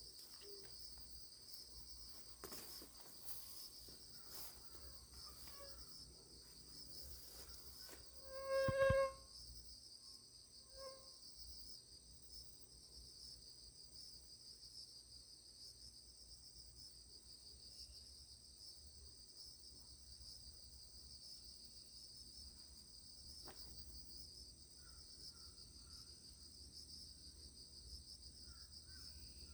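Insects chirring steadily and high-pitched throughout, typical of crickets. About nine seconds in, a short, loud pitched call or tone stands out, with a fainter repeat two seconds later.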